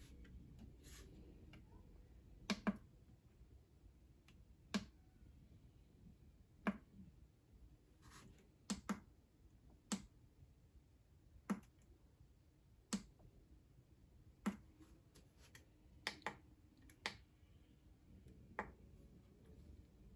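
Short, sharp plastic clicks at irregular intervals, about one every second or two, some in quick pairs, from pressing the front-panel buttons of a Bluetti AC30 portable power station.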